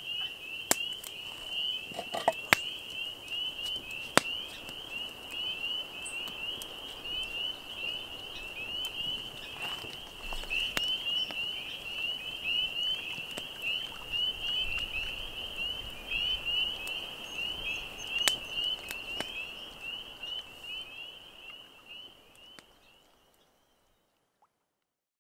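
Evening chorus of spring peepers: many small frogs giving short, high, rising peeps that overlap into a continuous shrill trill. A few sharp pops stand out above it, and the whole chorus fades out near the end.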